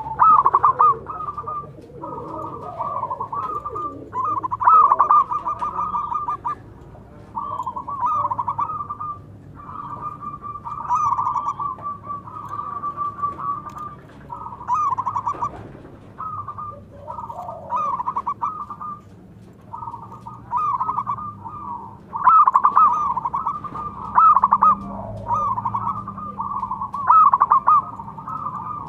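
Zebra doves (perkutut) cooing: phrase after phrase of quick, rippling staccato coos, separated by short pauses.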